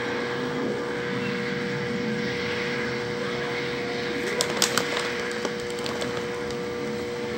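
Aquarium pump running: a steady hum and whir with a constant tone, and a few sharp clicks about four and a half seconds in.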